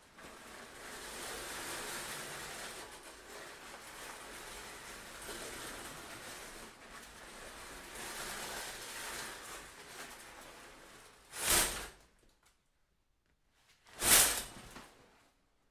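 A fabric window curtain rustling as it is handled, then drawn in two quick, loud swishes about two and a half seconds apart near the end.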